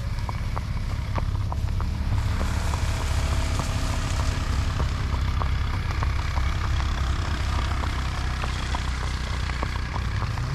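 A motor vehicle's engine running steadily, a low even drone, with a few light clicks in the first couple of seconds.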